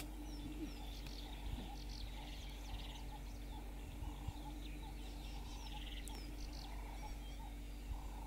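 Outdoor ambience of scattered wild bird chirps and short calls, with two brief rattling trills, over a steady low hum.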